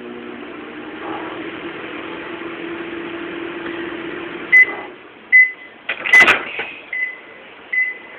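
Microwave oven running with a steady hum, then stopping about four and a half seconds in as its timer beeps five times at even intervals, signalling the heating cycle is done. A sharp clunk comes among the beeps.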